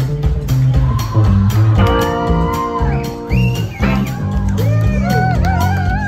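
Live rock band playing a boogie: a stepping electric bass line and drums under electric guitar, with a sustained chord about two seconds in and wavering held lead notes near the end.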